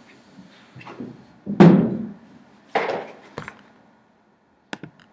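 Two dull thumps about a second apart, the first the loudest, followed near the end by a few short sharp clicks.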